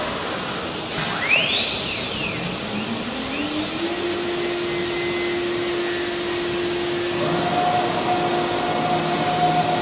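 Spindle of a CNC wood router spinning up: a rising whine that climbs for about three seconds and then holds at one steady pitch, over a steady machine hum. A second, higher steady tone joins about seven seconds in.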